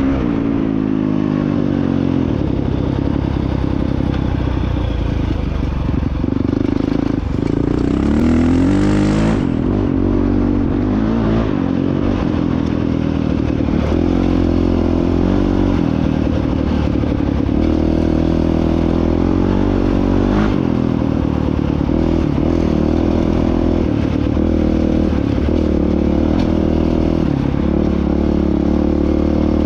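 Honda CRF450X single-cylinder four-stroke dirt bike engine under way on a trail, its pitch rising and falling as the throttle opens and closes, with quick rev climbs about a quarter of the way in.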